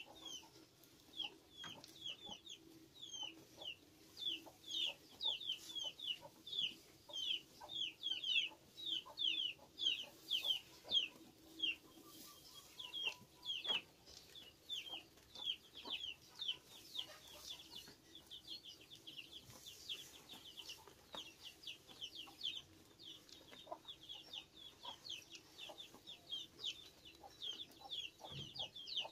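Chicks peeping: a steady stream of short, high-pitched falling cheeps, several a second.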